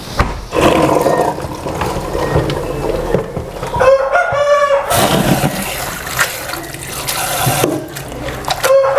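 Water splashing as papaya flowers are dropped into a pot and rinsed by hand in a stainless-steel sink. A rooster crows once, a little over a second long, about four seconds in, and a shorter pitched call comes near the end.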